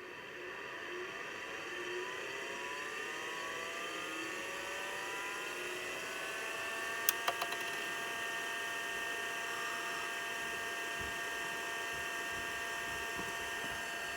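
Priam ID40-AT-D2 full-height MFM hard drive spinning up, a siren-like whine that rises for about six seconds and then holds steady. A quick run of three clicks comes about seven seconds in. This is its first start after more than a year in storage, the start that is always the loudest.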